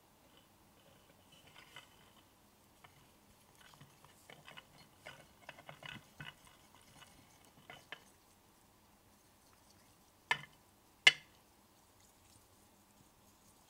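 Small wooden stirring stick scraping and clicking inside a tiny clear pitcher as pink konapun powder is mixed with water. A run of light irregular clicks and scrapes is followed, near the end, by two sharp clicks about a second apart, the second the loudest.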